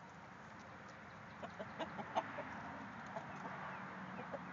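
Hens clucking, with a cluster of short sharp notes between about one and a half and two and a half seconds in.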